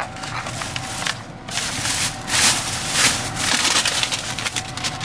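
Thin plastic shopping bag rustling and crinkling in irregular bursts as it is rummaged through, growing louder about two seconds in.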